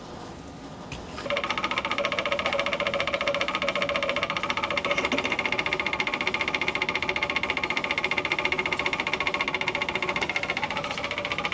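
Magnetic stirrer running, its stir bar clattering against the bottom of a square bottle of tris buffer in a fast, even rattle while the buffer is mixed for pH adjustment. The rattle starts about a second in.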